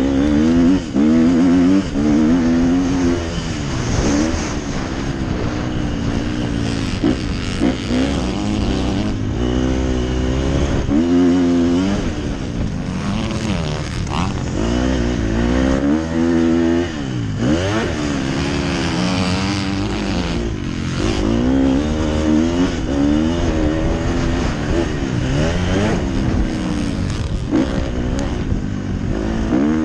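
Motocross dirt bike engine heard on board, revving up and dropping back again and again as the rider accelerates, shifts and slows for corners.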